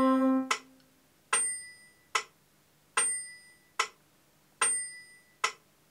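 A held note fades out in the first second. Then a metronome ticks in a steady two-beat pattern at about 75 beats a minute, an accented click with a short high ring alternating with a plain click, three times over.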